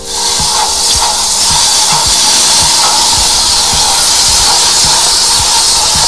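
High-pressure sewer jetter hose cutting in abruptly and spraying at full pressure inside a blocked PVC drain pipe, blasting out the clog: a loud steady hiss, with a low beat about twice a second underneath.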